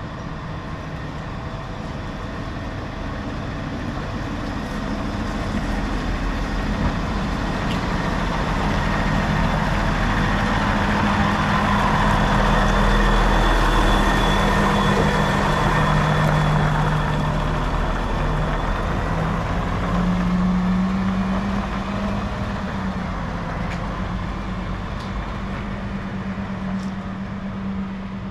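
Automated side-loader garbage truck driving past, its engine growing louder to a peak about halfway through and then fading as it moves away. A thin high whine rides over the engine while the truck is closest.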